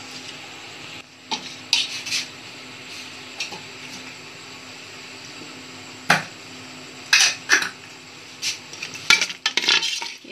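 A steel spoon clinking and scraping against the inside of a metal cooking pot as spoonfuls of ghee are added to cooked mutton, a few separate knocks at first, then quick repeated scraping as the pot is stirred near the end. A steady low hiss runs underneath.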